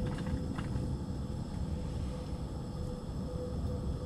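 Portable gas stove burner running on a low flame under a covered cup of boiling water, a steady low rush with a faint hum. A light tap or two near the start as the plastic rice tray settles on the cup.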